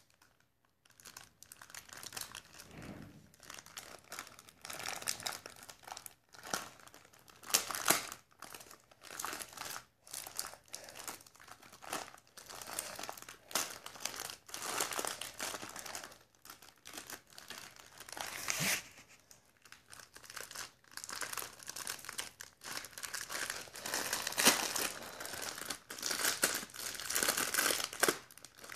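Cracker packet crinkling as it is handled, in irregular crackly bursts with short pauses between them.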